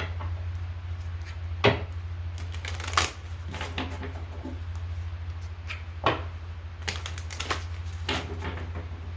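Oracle cards being shuffled and handled, with several sharp taps and slaps of the cards, over a steady low hum.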